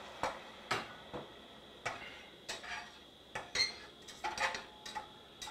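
Metal spoon stirring chicken stock in a stainless steel saucepan, clinking and scraping against the sides and bottom of the pan in about a dozen short, irregular knocks.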